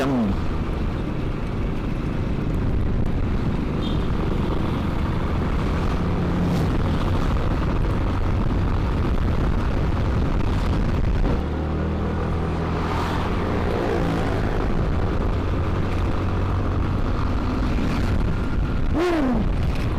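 Yamaha NMAX scooter's single-cylinder engine running while riding, with strong wind rushing over the microphone. The engine note changes and the level dips briefly about halfway through.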